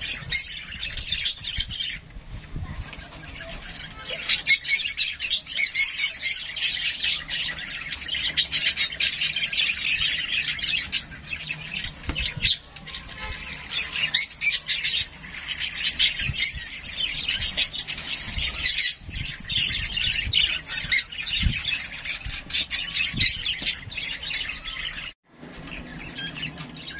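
Hand-fed baby parrot chirping rapidly and insistently in long high-pitched runs with short pauses, the begging calls typical of a chick being hand-reared; the calling stops briefly about 25 seconds in.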